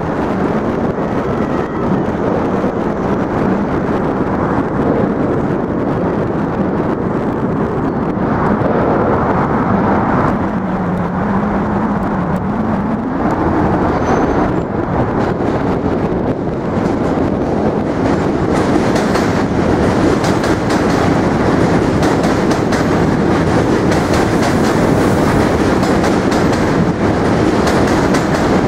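New York City subway train crossing the Manhattan Bridge, running with a loud, steady rumble and rattle of wheels on track. About ten seconds in, a whine dips in pitch and climbs back up.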